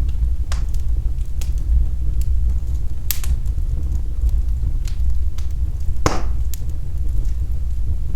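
Fire burning in a fireplace: a steady low rumble of flames with scattered sharp crackles and pops, the loudest about six seconds in.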